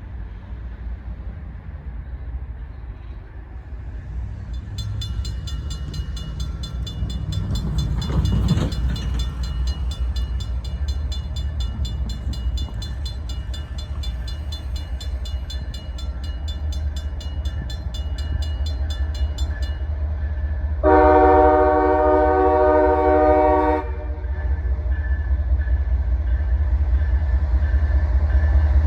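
CSX freight locomotive approaching, its low engine rumble building steadily. A high, rapid ringing sounds from about five seconds in until about twenty seconds in, and a little after twenty seconds the locomotive sounds one long multi-tone horn blast of about three seconds.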